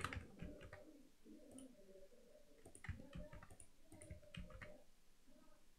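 Faint computer mouse clicks and keyboard keystrokes, scattered at irregular intervals, as shortcuts are pressed while modelling.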